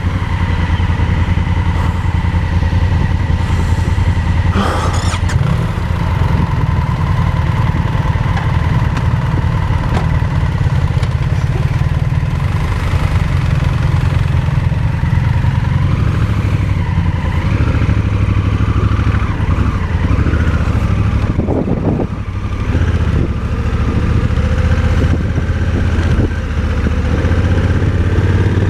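Motorcycle engine running under load at low speed through slippery mud, its revs rising and falling, with a short drop in engine noise about three-quarters of the way through.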